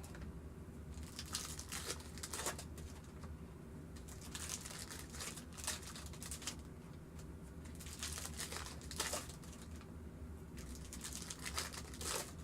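Trading-card packaging crinkling and tearing as it is opened by hand, in irregular bursts of crackle.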